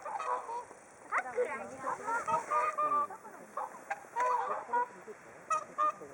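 A flock of whooper swans calling, many short honking, trumpet-like calls overlapping, some held briefly.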